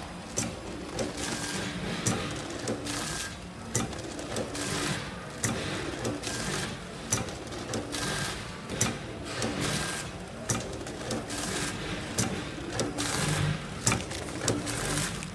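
Automatic popcorn bagging machine running: a steady mechanical hum under repeated sharp clicks and clatter, about one or two a second, with noisy rushes between them as it forms, fills and seals linked bags.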